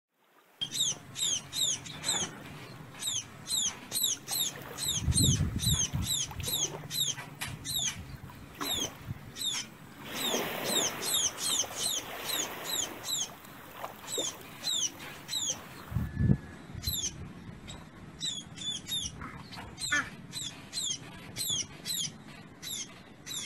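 Fledgling birds giving rapid, high-pitched begging cheeps, each call a quick downward sweep, several a second, while being fed. A low bump sounds about five seconds in and again near sixteen seconds.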